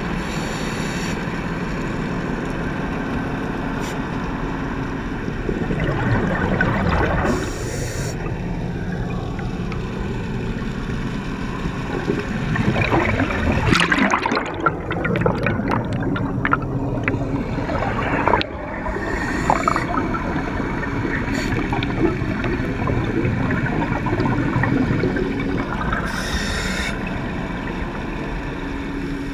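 Air escaping underwater from a ship's stern tube air seal: a continuous bubbling, gurgling rush of released seal air, busier and a little louder about halfway through.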